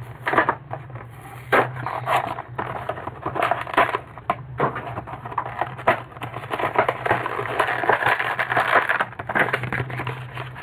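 Plastic toy blister packaging being torn and crinkled open by hand: irregular crackling and rustling with scattered sharp clicks, growing denser in the second half.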